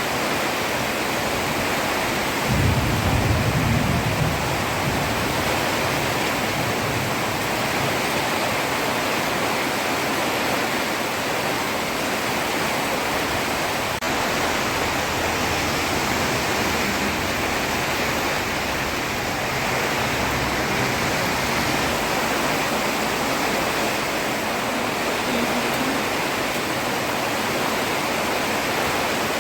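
Heavy rain falling on a road, a steady even hiss. A brief low rumble swells up a few seconds in.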